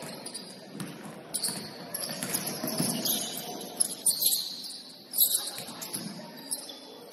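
Basketball game on a gym court: a ball bouncing and short high-pitched sneaker squeaks, with a few sharp knocks, the loudest about five seconds in, over a murmur of players' voices.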